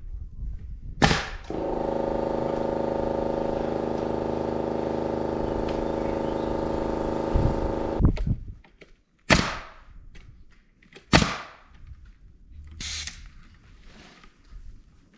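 Sharp shots of a nail gun driving nails into framing lumber: one about a second in, then four more spaced a second or two apart in the second half. Between them a motor runs steadily for about six seconds and then cuts off.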